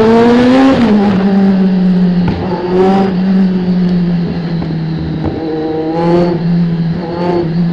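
Kawasaki Z1000's inline-four engine running through an SC Project aftermarket exhaust under way. It rises in pitch under acceleration in the first second, eases off, then runs steadily at a cruise with a few brief small rises in revs.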